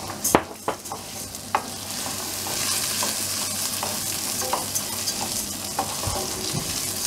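Parboiled rice and chopped garlic sizzling in olive oil in a stainless steel pan while being stirred with a wooden spoon. The spoon scrapes and knocks lightly against the pan. The sizzle grows stronger about two and a half seconds in.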